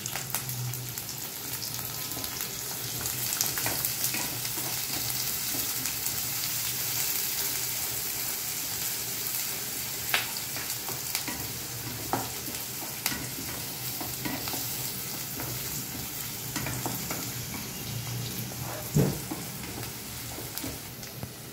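Chopped onion, capsicum, garlic and chilli sizzling in hot oil in a kadai while being stirred, with a steady hiss. The stirring spoon clicks against the pan a few times.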